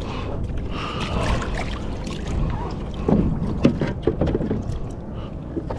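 Wind buffeting the camera microphone over water moving around a sit-on-top kayak at sea, with a few light knocks about three to four seconds in.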